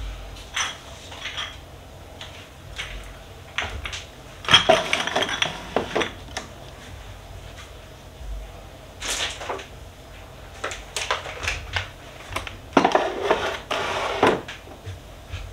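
Spice jars and food packets being put onto a kitchen cupboard shelf and into a plastic basket: scattered clinks and knocks, with two denser bouts of clatter, one about four and a half seconds in and one near the end.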